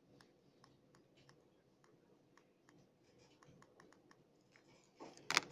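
Faint, scattered clicks from the buttons and plastic shell of a handheld wireless air mouse remote as it is pressed and turned over, then a louder plastic knock near the end.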